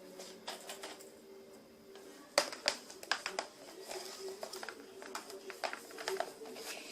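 Objects being handled and felt by hand: scattered clicks and knocks, the sharpest about two and a half seconds in, over a faint steady hum.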